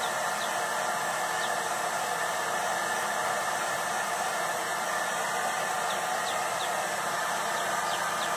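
Handheld hair dryer running, a steady rush of blowing air.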